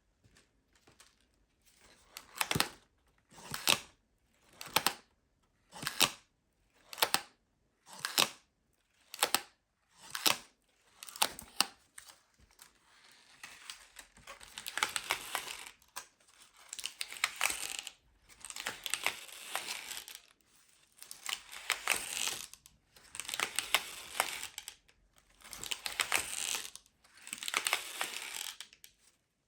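Paper pop-ups of the 'White Noise' sound pop-up book crinkling and rustling as they are worked open and shut: first about ten short swishes roughly a second apart, then longer rustles about every two seconds.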